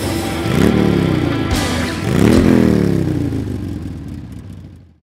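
Motorcycle engine revved twice, the pitch climbing quickly each time and sliding back down, then fading out.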